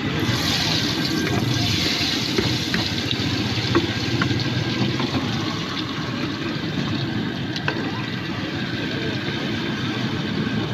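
Raw potato sticks sliding into hot oil, which sizzles and bubbles up hard as they go in, then settles into a steady frying sizzle. A few clicks of a metal slotted spoon against the pot, over a steady low rumble.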